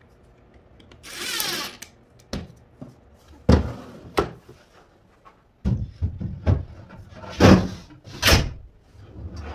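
A cordless impact driver runs for under a second, driving a screw into a wooden drawer box, followed by a few sharp knocks as the box is handled. Then a wooden drawer is pushed along its metal slides and shut, a series of knocks and thuds, the loudest about three-quarters of the way through.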